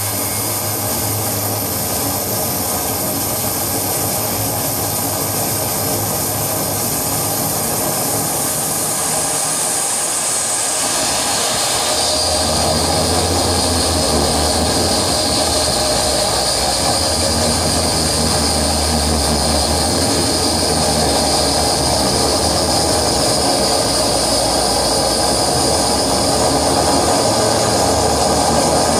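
Dense electronic noise drone from effects pedals and a mixer patched with cables: a steady wall of hiss and hum with several held tones. A high whistle fades out about ten seconds in, and a strong low hum swells in soon after.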